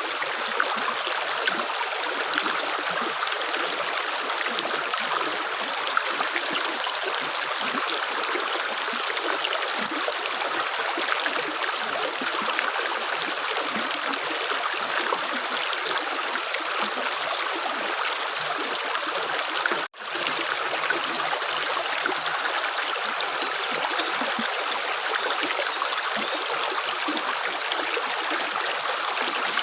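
Stream water running steadily, a continuous babbling rush with no separate drips. The sound drops out for an instant about two-thirds of the way through.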